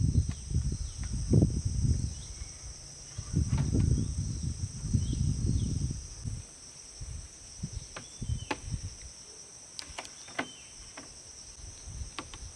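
Insects calling steadily in a continuous high-pitched band, with stretches of low rustling and rumbling in the first half and several sharp knocks in the second half.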